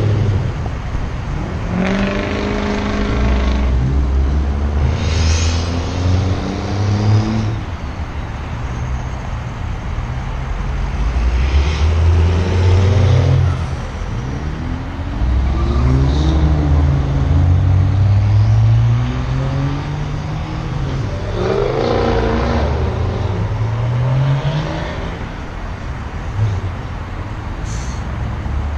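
A loud vehicle engine revving hard in several long runs, its pitch climbing and then dropping each time.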